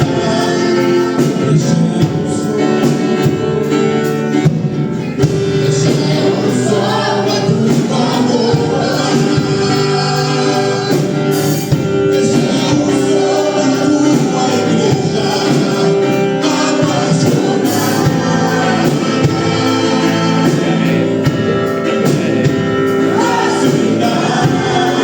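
Gospel worship music with singing: a band plays under a group of voices singing together.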